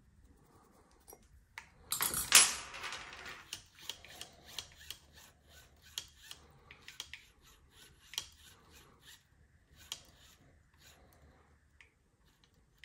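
Small metal parts being handled while a stopper and spring are fitted onto an RC motorcycle's steering servo arm: a scraping rustle about two seconds in, then a run of quick, light clicks and ticks.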